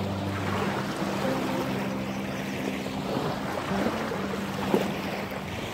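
Background music with held, changing notes, over small waves lapping and washing up on a sandy shore.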